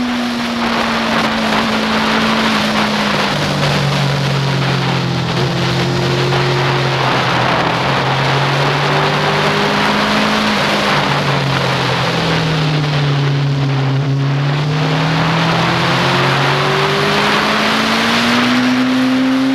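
2007 Yamaha FZ6n's 600 cc inline-four, fitted with a Leo Vince exhaust, running under load on track, heard under heavy wind rush on the bike-mounted camera. The engine note drops over the first few seconds, stays low through the middle, then rises steadily as the rider accelerates near the end.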